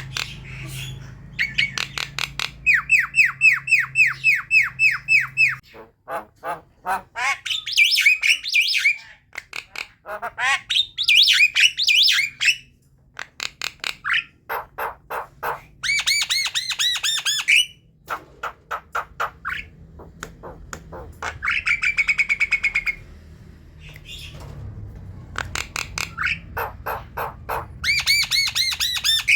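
Javan myna chattering: runs of quickly repeated harsh, buzzy notes, separated by short pauses, with a few sliding whistled notes in between.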